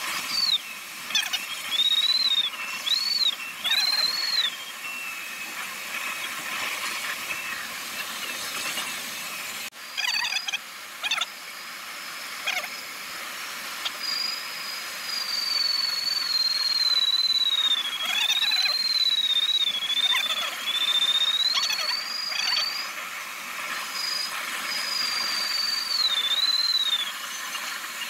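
Glider's electronic variometer tone: a single high pitch that rises with climb and falls with sink. It comes in short rising chirps at first, then from about ten seconds in runs as a continuous tone sliding slowly down and back up. Underneath is a steady hiss of air rushing past the cockpit canopy.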